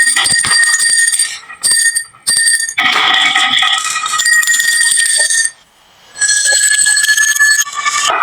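Marbles clicking and rattling along a marble run, over bell-like ringing tones that stop and start in stretches of a second or more, with a short lull a little past the middle.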